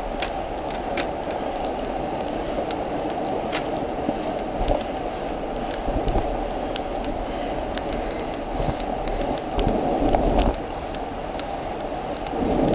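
Road bicycles riding fast through heavy rain on a wet road: a steady hiss of tyre spray and rain, with frequent sharp crackles of raindrops hitting the bike-mounted camera.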